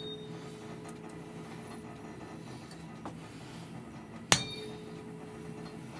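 A tuning fork tuned to A, from a C-major set of 256–512 Hz, rings with a steady pure tone after being struck and fades away. About four seconds in it is struck again with a sharp click and rings out once more at the same pitch.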